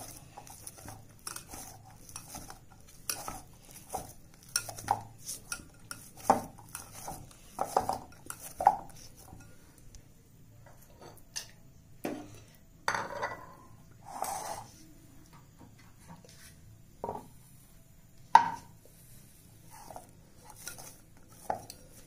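Risen dough being kneaded by hand in a glass bowl: irregular soft knocks and taps of dough and fingers against the glass, a few of them louder.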